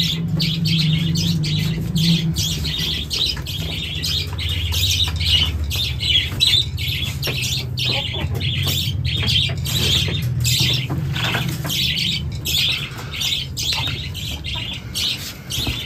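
Many caged birds squawking and chirping continuously in a dense, overlapping chorus, over a steady low hum.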